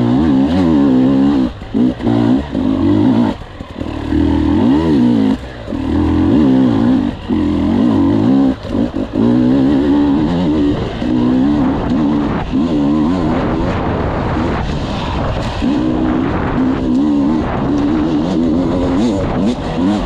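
Enduro motorcycle engine under load, its pitch rising and falling over and over as the throttle is opened and eased. The sound drops away briefly a few times in the first half where the throttle is shut.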